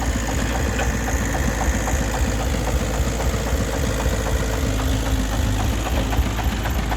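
Single-cylinder diesel engine of a công nông farm truck running steadily with an even, knocking beat.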